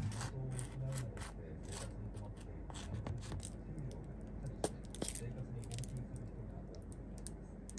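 Light clicks and taps of objects being handled, scattered irregularly, over a low steady hum.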